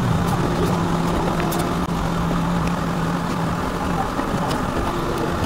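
Toronto subway train running out past the end of a station platform and into the tunnel, heard from inside the front car: steady wheel-and-rail running noise with a low motor hum that drops away about three seconds in.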